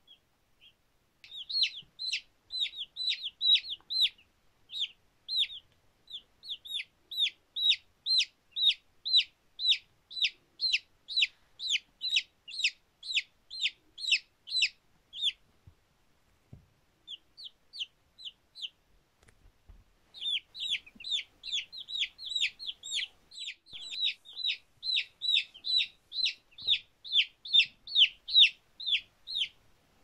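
Baby domestic chicks peeping: a fast run of high, downward-sliding peeps, about three or four a second, that thins to a few scattered peeps for several seconds midway, then picks up again.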